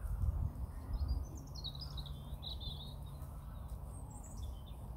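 A small bird twittering in a quick run of high chirps starting about a second in, with a shorter call near the end, over a steady low rumble that is strongest at the start.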